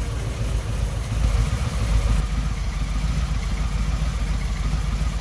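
Harley-Davidson Milwaukee-Eight 114 V-twin idling steadily, a low, evenly pulsing rumble.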